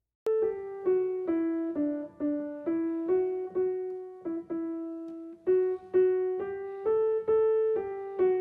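Piano playing a slow single-note melody in the middle register, about two notes a second, each note struck and then fading.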